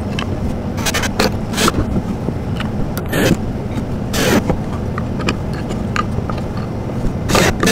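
Cordless drill driving small screws into the wooden shelf pieces in short bursts, with clicks and knocks as the pieces are handled.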